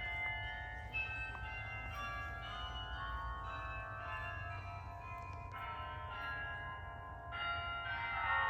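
Carillon bells of Bok Tower playing a tune: single struck notes, each ringing on as new ones sound, with fresh groups of notes about a second in and again near the end.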